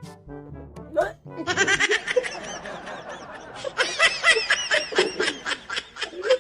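Background music for the first second and a half, then hearty laughter in quick repeated bursts that keeps going.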